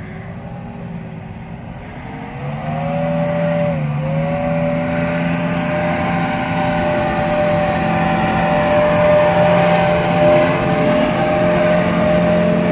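Off-road 4x4's engine revving hard under load as it climbs a steep, wet hill. The revs rise sharply about two and a half seconds in, dip briefly, then stay high and keep creeping up.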